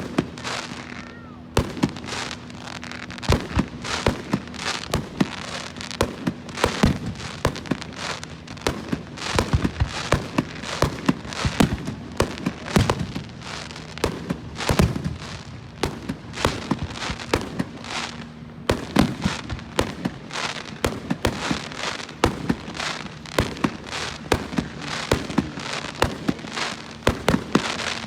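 Fireworks going off in rapid succession, dozens of sharp bangs and pops close together with crackling between them, continuing without a break.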